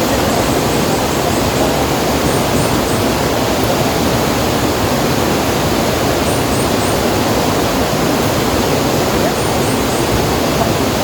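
Steady loud rushing noise with no pitch, even throughout. Faint high chirps come in three quick groups of about three each.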